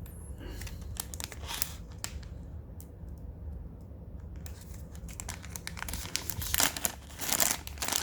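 Packaging pouch being handled, torn open and crinkled: a few scattered crackles at first, then from about halfway a dense, louder run of tearing and crinkling.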